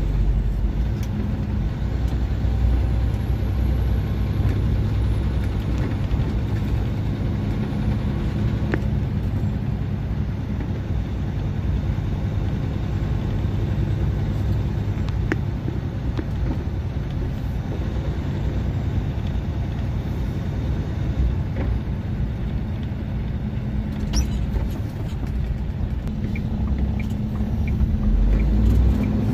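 Diesel engine and road noise of an International LT625 semi-truck cruising steadily, heard from inside the cab as a continuous low drone with a few faint clicks.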